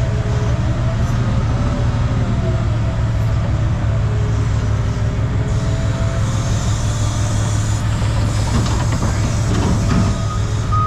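Heavy vehicle engine running steadily with a deep hum. A hissing noise comes in about halfway through and fades a couple of seconds later.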